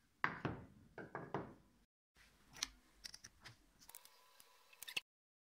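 MDF boards being set down on a table, knocking five times in quick succession, followed by a few lighter clicks and taps as the boards and a ruler are handled.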